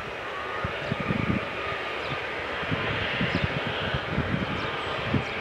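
Airbus A321's jet engines running at low power as it taxis, a steady distant rush, with gusts of wind buffeting the microphone in irregular low thumps.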